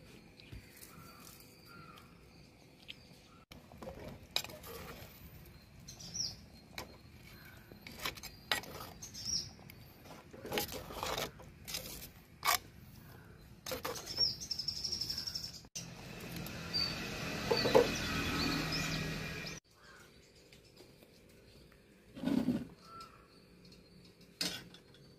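Birds chirping now and then over scattered knocks and clinks of cooking utensils handled around a clay pot. In the middle, a louder rushing noise with a hum starts and stops abruptly after about four seconds.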